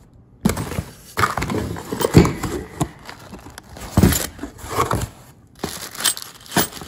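Cardboard box flaps and plastic packaging rustling and crinkling as parts are unpacked by hand, in irregular bursts with a few dull knocks, the loudest about two seconds in.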